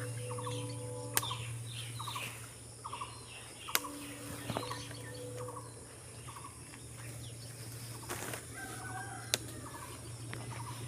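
Short bird calls, like domestic fowl clucking, repeating every half second or so over a steady low hum, with a few sharp clicks.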